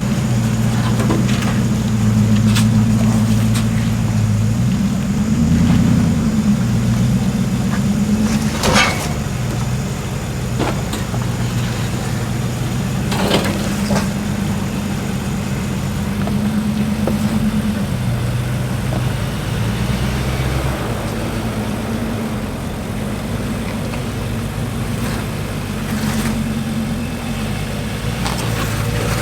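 A four-wheel drive's engine runs at low revs, its pitch rising and falling a little as the vehicle crawls along a rocky track. A few sharp knocks sound about nine, eleven and thirteen seconds in.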